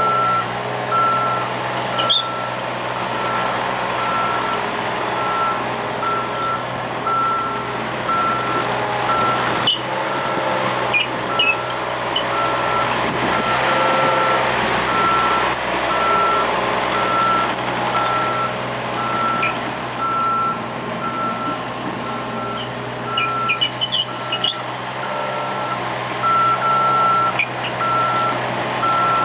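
Cat 303.5E mini excavator running, its diesel engine droning steadily under a continuous series of short, evenly repeated alarm beeps, the travel alarm of a machine on the move. Scattered clanks and squeaks come in from time to time, most of them near the end.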